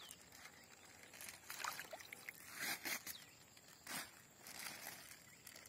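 Soft, irregular trickles and splashes of water as a plastic bag of fish fry is emptied into a pond.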